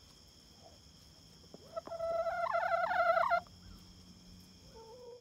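Chicken calling: one loud, wavering, drawn-out call lasting about a second and a half, then a short, softer call near the end.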